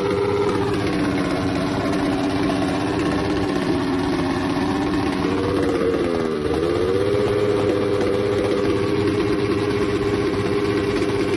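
Small motorcycle engine running steadily. About six seconds in its pitch dips briefly and comes back up.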